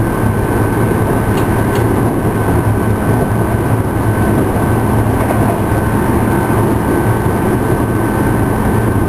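Tokyu 5000 series electric train running steadily, heard from inside the motor car DeHa 5210: a steady rumble of wheels on rail with a low hum and a thin, steady high whine. Two light clicks about a second and a half in.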